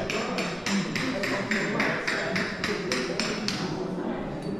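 A small hammer tapping on glazed zellige tile to chip it into shape, in quick, even strokes about three a second, stopping about three and a half seconds in.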